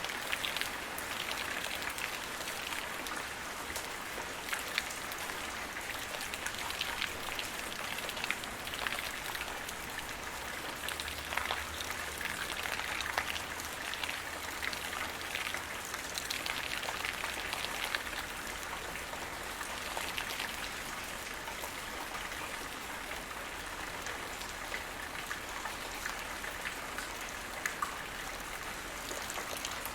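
Steady rain falling, with many individual drops pattering and ticking on surfaces.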